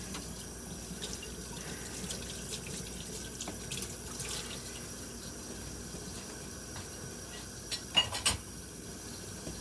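Water running steadily from a kitchen tap into a sink during dishwashing, with a few sharp clinks and knocks of dishes about eight seconds in.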